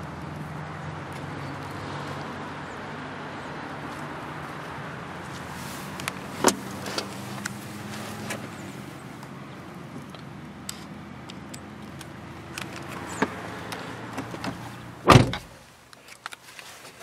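A steady low hum with a few scattered clicks, then a car door shutting with one heavy thump about fifteen seconds in, after which it goes quieter.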